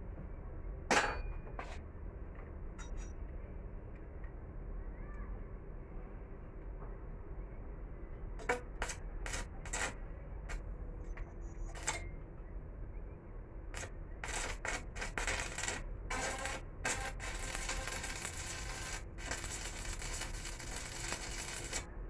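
Metal pieces knocking and clinking as they are handled, scattered sharp strikes through the middle. A denser crackling hiss takes over for the last few seconds.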